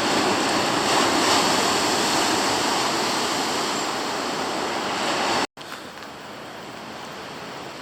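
Storm surf breaking heavily and continuously on the shore. About five and a half seconds in, the sound cuts out for an instant and carries on much quieter.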